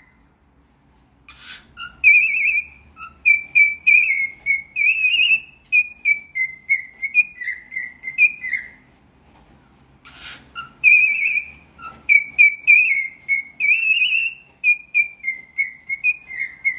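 Parrot whistling a melody in short, gliding notes, the same tune twice with a brief pause between.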